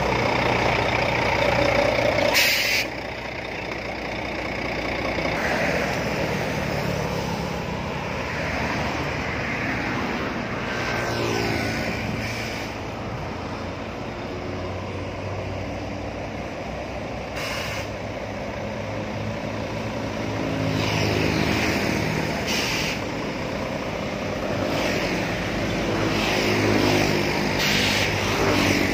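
Heavy trucks and passing road traffic running, with a drone of engines that rises and falls as vehicles go by. Four short bursts of air-brake hiss cut through.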